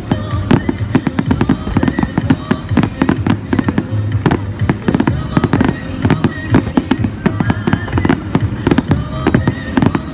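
Fireworks display: a dense, continuous barrage of aerial shells bursting, with many rapid overlapping bangs and crackles each second.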